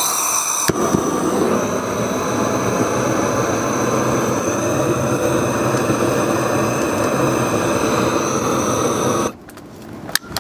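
Handheld propane torch on a small propane cylinder, its flame blasting steadily into kindling to light a smoker's fire. There is a click about a second in, after which the sound gets fuller, and it cuts off suddenly about nine seconds in.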